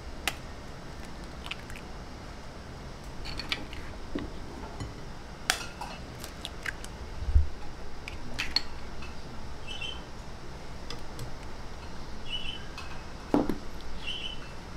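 Scattered light taps and clinks as eggs are cracked with a metal spoon over a glass mixing bowl and the shells are set into a small glass dish. There are about a dozen separate clicks, a few of them ringing briefly.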